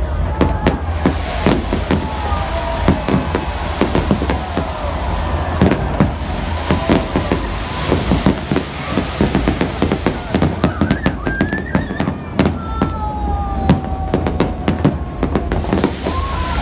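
Fireworks display: aerial shells and ground fountains going off in rapid, overlapping bangs and crackles, with a few gliding whistle-like tones over the top.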